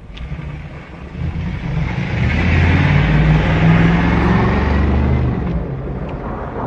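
A motor vehicle passing close by: engine and tyre noise swell to a peak in the middle, then fade.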